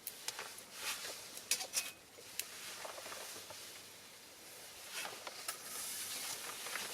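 Small fire of pine cones and cherry branches crackling, with a cluster of sharp pops in the first couple of seconds, then a steadier hiss of burning with a few scattered pops.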